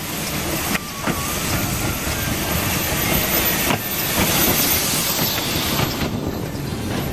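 Narrow-gauge steam train passing close at low speed: a steady rumble and clatter of its wheels on the rails, loudest as the locomotive draws alongside about four to five seconds in.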